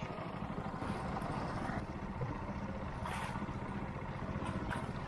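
Small outboard motor running steadily at trolling speed, pushing a wooden boat, a low even pulsing drone. A short burst of hiss about three seconds in.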